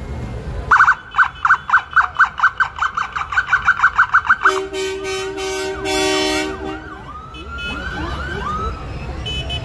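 Emergency vehicle siren in a fast pulsing yelp, about five pulses a second and quickening, then several short blasts of a low vehicle horn, followed by fainter falling siren sweeps.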